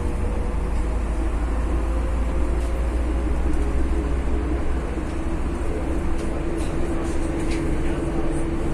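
MAZ city bus driving, heard from inside the passenger cabin: a steady low engine drone and road noise, with a gear whine that slowly rises in pitch. A few light rattles come in the second half.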